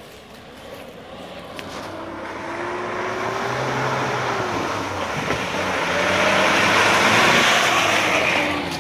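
Lada Niva 4x4 driving through deep mud toward the listener and passing close by, its engine revving with the pitch rising and falling as the tyres churn and splash through the mud. The sound grows steadily louder to a peak about eight seconds in, then falls away as it goes past.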